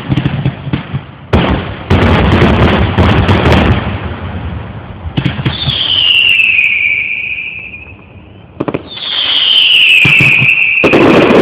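Fireworks going off: a dense run of bangs and crackles in the first few seconds, then two long whistles that drop in pitch, each about two seconds, with bangs returning near the end of the second.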